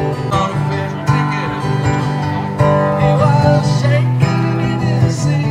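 Busker playing an acoustic guitar.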